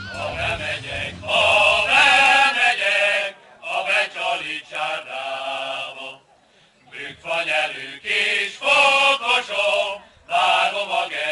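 A man singing a chant-like melody with no instrumental backing, in phrases of a second or two separated by short breaths; the tail of a rock guitar track dies away under the first few seconds.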